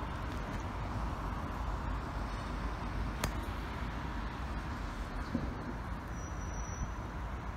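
Steady outdoor town ambience: a low rumble of distant road traffic, with a single sharp click about three seconds in.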